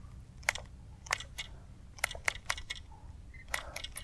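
Light sharp clicks from fishing tackle as a stick-bait lure is worked back across the surface with rod twitches, coming singly and in quick groups of two or three.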